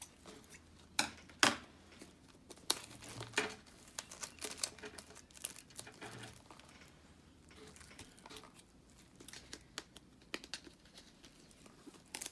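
Paper wrapping and tape being cut and peeled off a rolled canvas: irregular rustling and crinkling, with a few sharper crackles about a second in.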